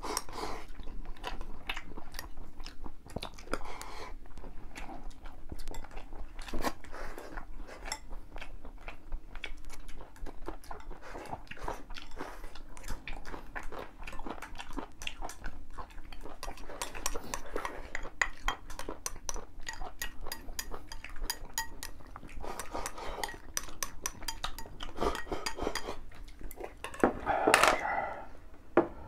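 Chopsticks clicking and scraping against porcelain bowls at a meal, in many quick sharp clicks, with chewing. A louder, fuller noise stands out near the end.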